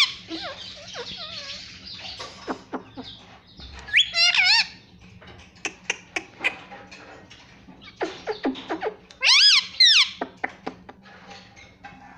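Ring-necked parakeet calling twice, loud high calls that bend up and down in pitch, about four seconds in and again near the ninth second, with scattered light clicks between.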